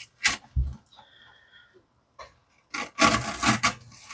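A D2-steel folding knife blade sawing through thick jute rope on a cutting board. There is a short rasp and a dull knock in the first second, a pause, then about a second of rasping strokes near the end.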